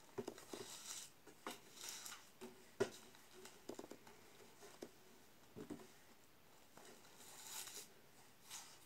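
Faint crinkling and clicking of a woven panel of folded paper strips being handled and pressed by fingers, with a sharper click about three seconds in and a longer rustle near the end.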